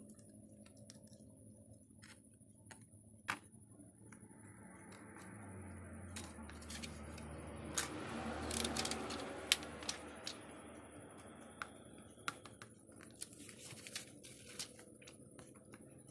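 Small clicks and taps with a soft plastic rustle as the thin film sheets of a phone LCD's backlight are handled, slid and peeled apart; the rustle swells about halfway through.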